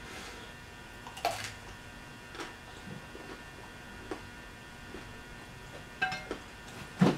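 Close-up eating sounds: chewing pizza crust, with scattered short clicks and taps as fingers pick food off a plate. The loudest tap comes near the end.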